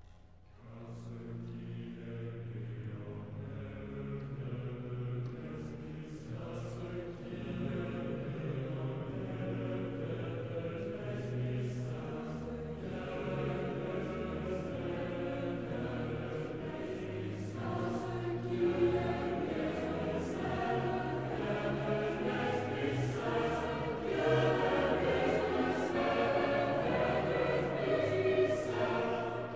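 A choir sings a sacred French choral piece while a pipe organ holds steady low notes beneath. The singing grows gradually louder toward the end.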